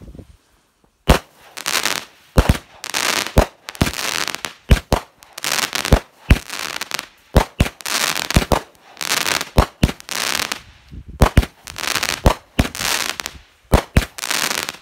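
A 200-gram consumer fireworks cake ('Rowdy Rampage') firing shot after shot, about one a second and often in quick pairs. Each shot is a sharp launch thump followed by a crackling burst in the air.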